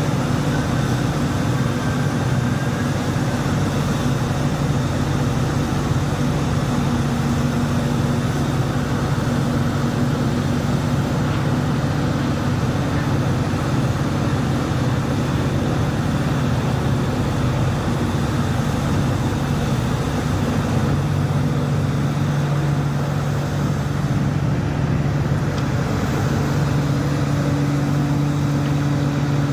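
Large Hitachi mining excavator's diesel engine running steadily under load while it digs and swings, a constant low engine drone with no pauses.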